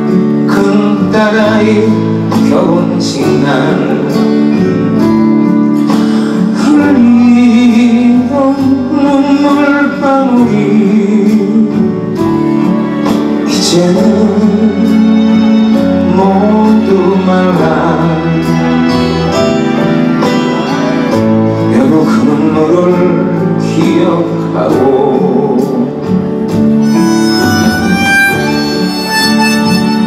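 A man singing a song with his own acoustic guitar accompaniment; near the end the singing stops and a harmonica takes up the melody over the guitar.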